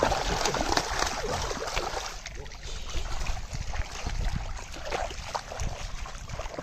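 A fish speared on an arrow thrashing and splashing in shallow water, loudest in the first second or so, then wading steps sloshing through shallow water.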